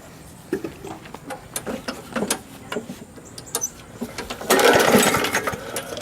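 Walk-behind gas lawn mower being pull-started. Clattering knocks as it is handled, then about four and a half seconds in a hard pull on the recoil starter cranks the engine for a second or so without it catching, since the tank is out of gas.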